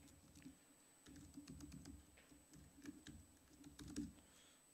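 Faint typing on a laptop keyboard: scattered single key clicks, with a sharper keystroke about four seconds in.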